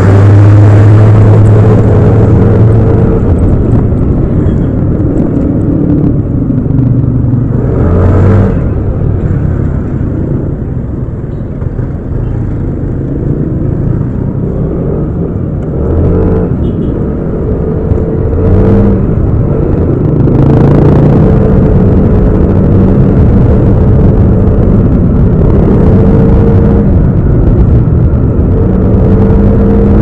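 Yamaha Aerox 155 scooter's single-cylinder engine running through city traffic, its revs rising and falling as it pulls away and eases off. It goes quieter for a few seconds in the middle.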